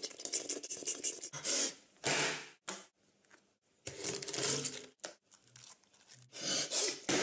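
Wet squishing, rubbing and tearing of raw meat and fish being squeezed and pulled apart by hand, in short irregular bursts.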